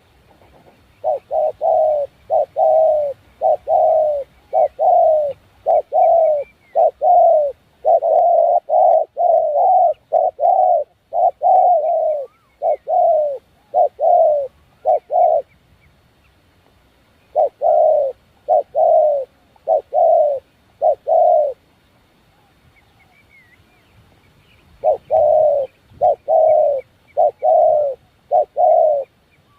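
A bird calling loudly in long runs of short repeated notes, about one and a half a second, each note dropping in pitch. It calls steadily for about fourteen seconds, pauses, gives a short run of five notes, pauses again, and starts another run near the end. Faint higher chirps from other birds come through between the notes.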